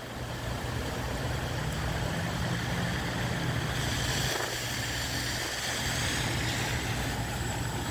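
Rain-swollen stream rushing steadily in flood, with a vehicle engine running as a low hum underneath, stronger in the first half.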